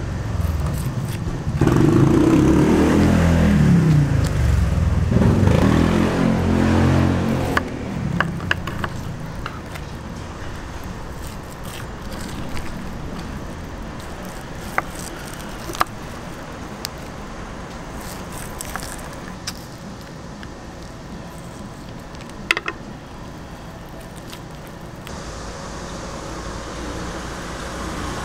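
A motor vehicle's engine passes close by for the first several seconds, its pitch falling. After that comes a steady low street background with a few sharp clicks of a knife blade striking a wooden cutting board.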